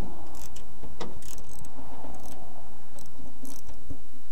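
Hand ratchet wrench with a long socket clicking in short irregular runs as it works an air cleaner bracket bolt loose through a steel jeep firewall.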